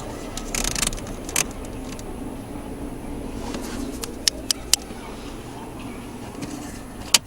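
Steady hum inside a car with a short rustle, then a few sharp clicks (three in quick succession midway, one loud one near the end), as the Fiat's heating temperature control unit is worked in place to test its intermittent fault.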